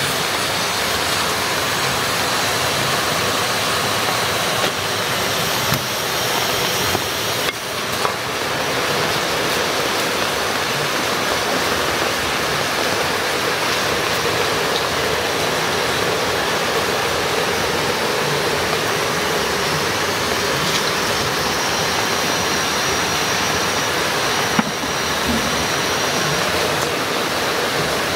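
Steady, loud rushing hiss of a gas burner under the soup pot, with a few soft knocks.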